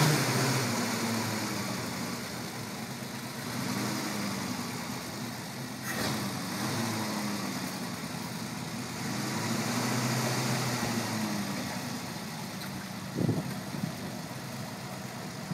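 A 1951 Mercury M1 pickup's original flathead V8 idling, its revs rising and falling gently a few times. A sharp clunk about thirteen seconds in is the driver's door being opened.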